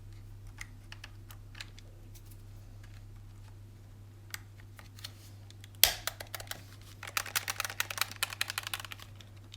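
PS5 DualSense controller buttons clicking as they are pressed and released: a few scattered clicks, one sharper knock about six seconds in, then a fast run of clicks for about two seconds. The circle button's sticky rubber dampener has been trimmed, which leaves the button slightly noisier.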